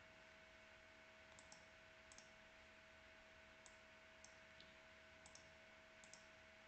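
Faint computer mouse clicks, about a dozen, several in quick pairs, as drawing tools are picked. Under them is a faint steady hum in an otherwise near-silent room.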